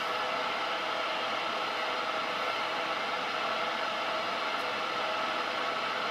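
Steady mechanical whir and hiss of running machinery, with a few faint steady tones in it, unchanging throughout.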